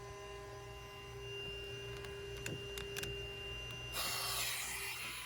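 A steady hum with a few sharp clicks, then about four seconds in a hiss of air lasting a little over a second: air moving through the AC unit's condensate drain line, a sign that the line is not clogged.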